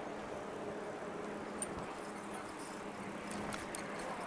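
Steady wind and road noise while riding a bicycle along a street, with a few light clicks about a second and a half in and again near the end.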